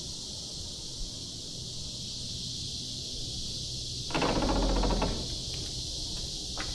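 Chorus of cicadas droning steadily in summer trees. About four seconds in, a louder burst of lower rustling noise lasts about a second, and a single click comes near the end.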